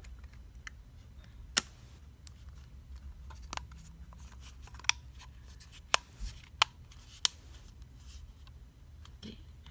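Plastic clips of a smartphone's frame snapping into place as it is pressed onto the phone body: about five sharp clicks spread out, with softer ticks between.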